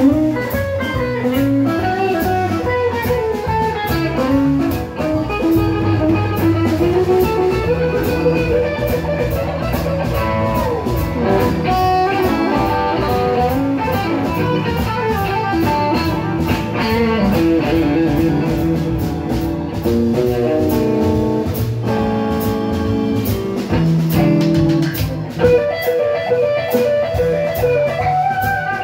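Live blues-rock band: an amplified Stratocaster-style electric guitar playing lead lines over a drum kit with cymbals keeping time. About ten seconds in the guitar makes a long falling slide in pitch.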